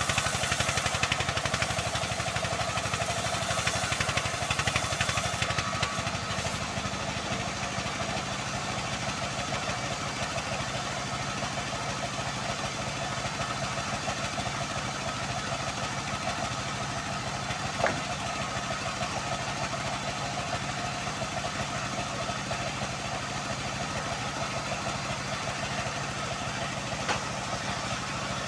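Engine of a homemade band sawmill running steadily. A higher hiss drops away about five seconds in, and there is one sharp knock a little past the middle.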